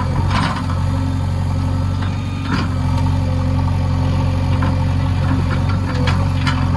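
Diesel engine of a JCB backhoe loader running steadily, with a few short sharp knocks.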